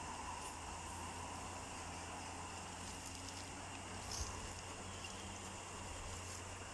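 Faint steady background hum and hiss with a few small ticks and clicks.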